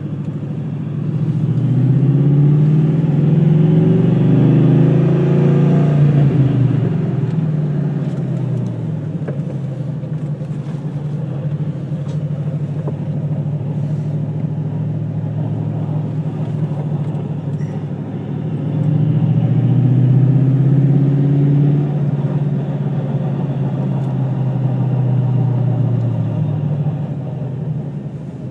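2002 Ford Mustang GT's 4.6-litre V8 running, its note rising in pitch and loudness about a second in, easing back to a steadier lower note, then rising and easing again about two-thirds of the way through.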